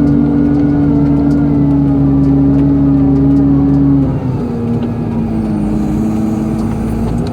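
Excavator engine running steadily under load, its pitch and level dropping a little about four seconds in as the revs come down.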